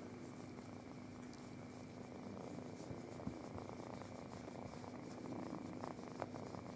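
Tabby kitten purring steadily while its head is stroked, with a few light rustles of handling near the end.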